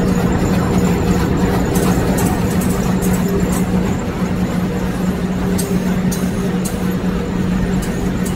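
Corrugated-board inline flexo printer slotter die-cutter and folder-gluer running at production speed: a steady loud machine drone with a strong low hum, and quick irregular clicking over it.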